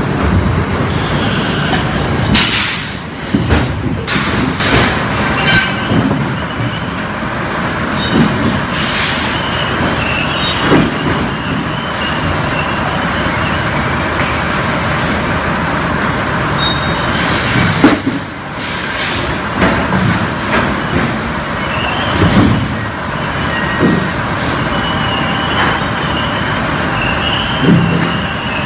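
Log bucking line running: a steady machinery drone with chain conveyors clanking and squealing. Repeated knocks sound as debarked pine logs are moved along the conveyors.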